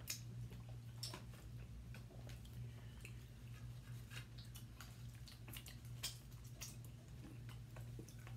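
People chewing smoked turkey leg and licking sticky sauce from their fingers: scattered soft mouth smacks and clicks over a steady low hum.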